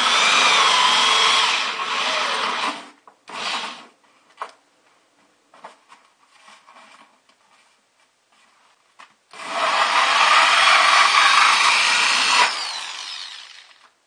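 Electric drill with a hole saw boring through a plastic bucket and its styrofoam liner, a rasping whine over the motor. It cuts for about three seconds, gives a brief burst, goes quiet apart from light handling, then cuts again for about three seconds and spins down near the end.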